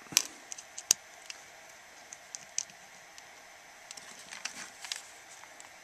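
Scattered light clicks and taps of small metal parts being handled as a carburetor cover and its screw are fitted by hand, with one sharper click about a second in and a small cluster of clicks near the end.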